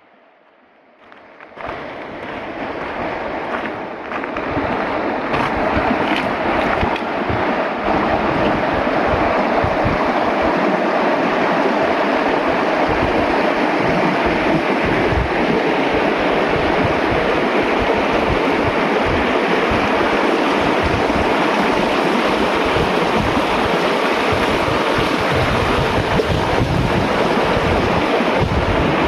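Loud, steady rushing noise that swells in over the first several seconds and then holds, with irregular low buffeting of wind on the microphone.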